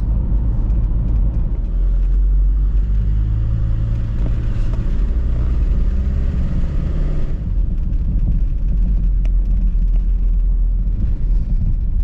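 Car driving, heard from inside the cabin: steady engine and road rumble. A stretch of brighter tyre and road hiss in the middle stops suddenly a little after seven seconds.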